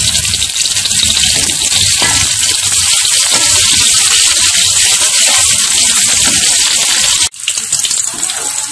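Shallots, garlic and sliced red chillies sizzling in hot oil in a wok while a metal spatula stirs them. The sizzle cuts out for an instant about seven seconds in, then carries on a little quieter.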